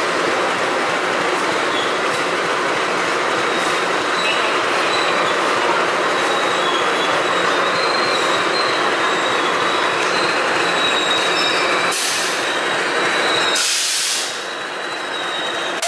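Passenger train running on the rails: a loud, steady rushing rumble with a thin, high wheel squeal over it. The noise drops away sharply about two seconds before the end.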